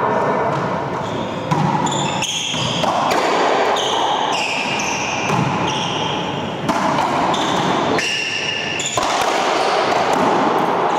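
Racquetball rally: hard pops of the ball off racquets and the court walls, with sneakers squeaking in short high-pitched chirps on the hardwood floor.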